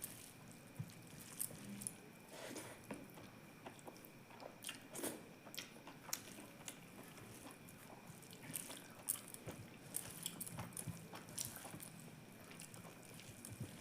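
A person chewing and eating food close to the microphone, with many scattered soft mouth clicks and smacks.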